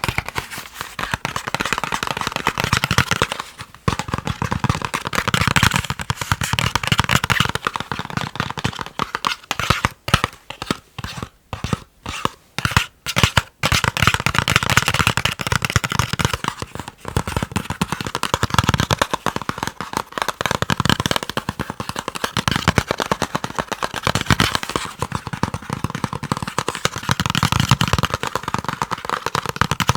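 Fast ASMR tapping on chocolate: a dense, rapid run of sharp taps, breaking into short separate bursts with brief pauses for a few seconds about a third of the way in.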